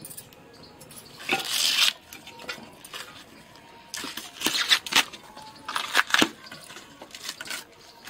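Steel ladle stirring and scraping mutton in masala in an aluminium pressure cooker, in three rough bursts with sharp clanks against the pot's side.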